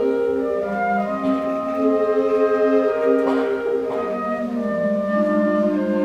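School concert band playing a passage of held, overlapping wind notes whose chords shift every second or so, with a short noisy swell about three seconds in.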